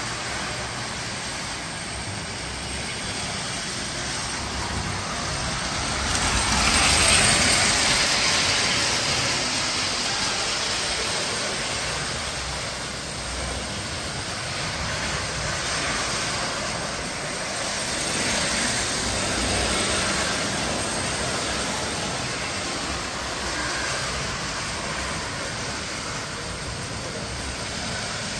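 Tinplate model trains running on metal three-rail track, a steady noisy rumble that swells for a few seconds about seven seconds in.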